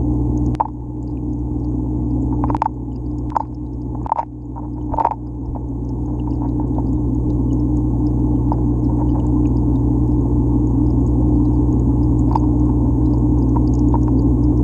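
Steady low hum of aquarium equipment heard through the water, with five sharp clicks in the first five seconds and a few fainter ticks later: a figure 8 puffer crunching live snail shells.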